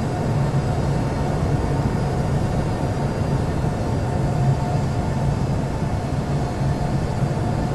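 Jet airliner engine noise: a steady low rumble with a faint steady whine.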